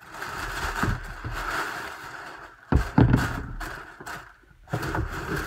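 Rustling and crinkling of the paper wrapping inside a cardboard sneaker box as hands pull it back and smooth it down, with a couple of louder bumps about three seconds in.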